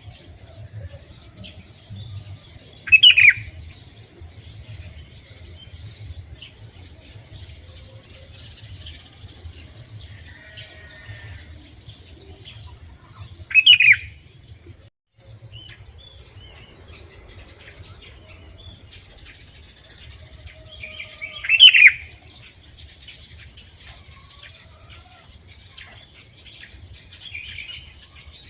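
Sooty-headed bulbul giving three short loud calls, roughly ten seconds apart, over a steady high insect trill.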